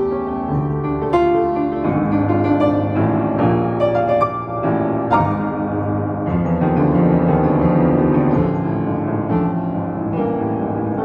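Solo piano playing a slow, pedalled piece of chords and melody, with a new chord or note struck every second or so and the notes left ringing.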